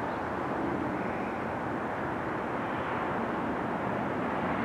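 Low, steady rumble of an approaching freight train's GE AC4400CW diesel locomotives, still far off, growing slightly louder near the end.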